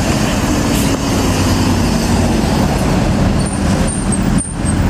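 Large bus driving past close by, its engine running loud over road noise, the engine note falling slightly as it goes by.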